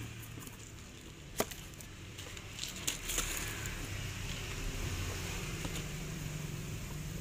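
Baking tray of cookies being handled over a low steady rumble, with one sharp click about a second and a half in and a few lighter clicks around three seconds.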